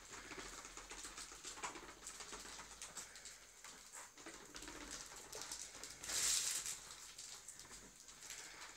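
Child's plastic tricycle rolling over a tiled floor, its plastic wheels and frame rattling and clicking, with a brief louder rush of noise about six seconds in.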